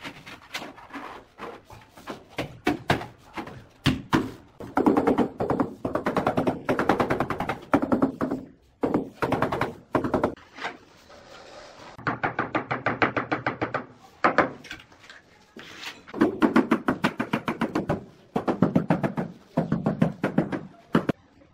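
Rapid, rhythmic tapping on ceramic wall tiles, in bursts of a second or two with short pauses between, as the tiles are knocked flat into their adhesive bed.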